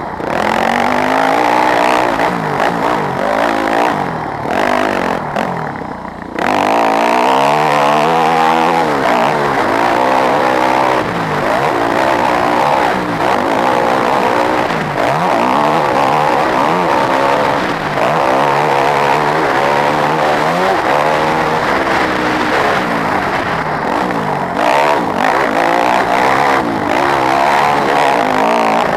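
Yamaha WR250F's single-cylinder four-stroke engine being ridden hard, revving up and down again and again as the throttle opens and closes, with a short easing off about six seconds in.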